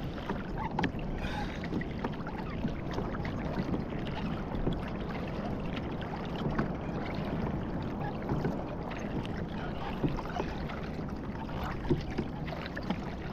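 Water splashing and lapping against the hull of a moving pedal-drive fishing kayak, with small irregular knocks and clicks.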